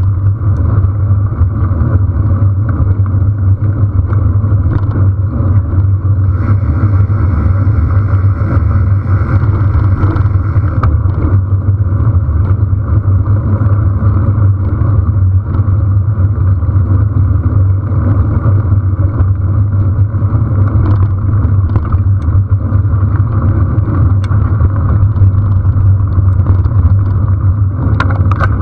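Steady rumble of a bicycle riding on a dirt road, with wind buffeting the bike-mounted camera's microphone and tyre noise from the rough track. It stays unbroken and loud throughout.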